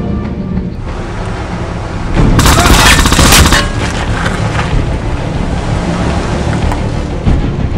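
A burst of rapid automatic gunfire, about a second long, starting a little over two seconds in, over a steady low rumble.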